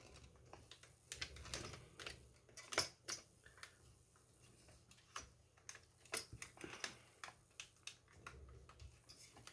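Light, irregular clicks and taps of hard plastic as a model car chassis is handled and turned over on a table, the sharpest click a little under three seconds in.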